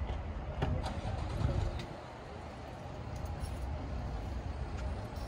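A few sharp clicks as an SUV's rear liftgate is unlatched and lifted open, over a steady low rumble of outdoor background noise.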